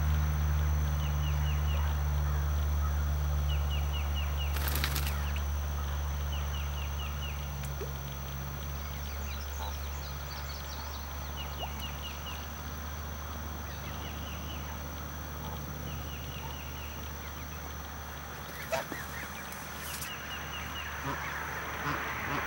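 Outdoor ambience: a low steady hum that fades over the first several seconds, and short chirping phrases of a bird repeating every couple of seconds over a steady high insect tone. Two sharp clicks, one about five seconds in and one near the end.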